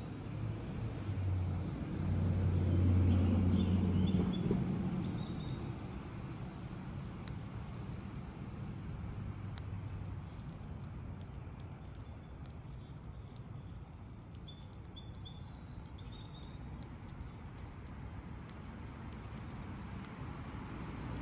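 Outdoor ambience: a steady low hum with a louder low rumble in the first few seconds, and small birds chirping now and then, mostly in the first half.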